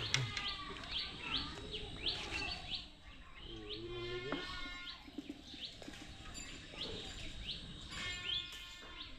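Birds chirping over and over, with short high calls roughly twice a second, and a brief lower pitched call about four seconds in.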